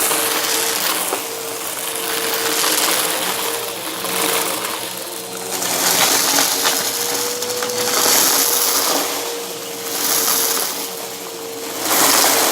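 Bissell vacuum running, its brushroll crunching and crackling on debris over a steady motor whine. The crunch and hiss swell and fade about every two seconds.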